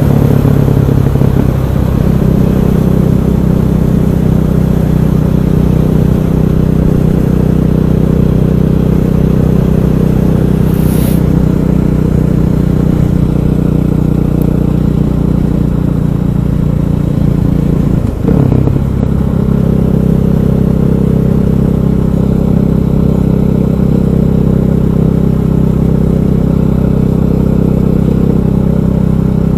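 KTM 500 EXC single-cylinder four-stroke engine running steadily while the bike is ridden, with a brief dip in level and a bend in pitch about eighteen seconds in.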